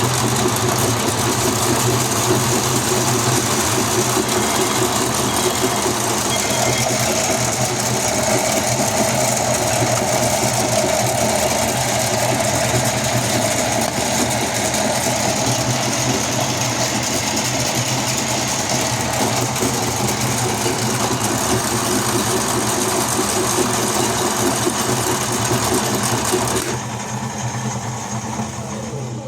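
Toy washing machine's small electric motor running steadily, a low hum with a higher whine in the middle stretch. It drops in level near the end and stops.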